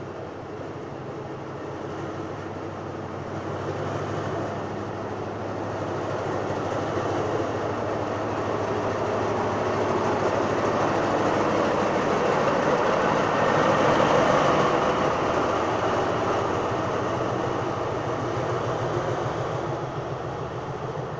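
A State Railway of Thailand diesel locomotive pulls out past the listener with its engine running, followed by its passenger coaches rolling by on the rails. The sound starts with a steady low engine hum. It then builds into a wide rolling noise that is loudest about two-thirds of the way through and eases off near the end.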